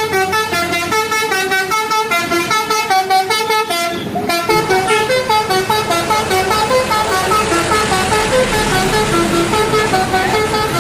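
Telolet bus horn, a set of electric air horns, playing a fast tune of short notes that step up and down in pitch, with a brief break about four seconds in.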